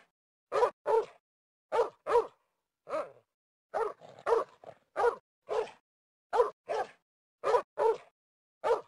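A dog barking repeatedly, mostly in quick pairs of barks, about fourteen barks with silence between them.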